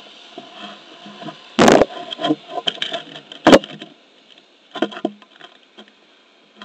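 Knocks, clicks and scrapes of a hand adjusting an action camera mounted low on a Onewheel board, with two loud bumps about one and a half and three and a half seconds in and a few smaller ones about five seconds in.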